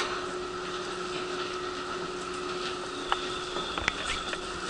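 Railway station ambience: a steady hum under a hiss of background noise, with a few scattered light clicks and a brief thin high tone past the middle.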